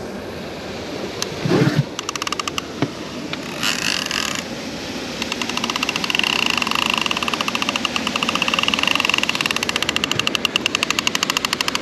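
A fishing reel being cranked under heavy load as a large Wels catfish is reeled in: a fast, even clicking with a whine. It starts in short runs and becomes steady and continuous from about halfway in.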